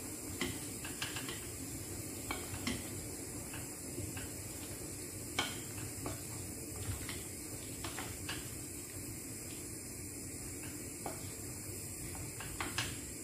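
Wooden spatula stirring chicken, carrot and pineapple chunks in a creamy sauce in a nonstick frying pan. Irregular knocks and scrapes against the pan sound over a steady hiss.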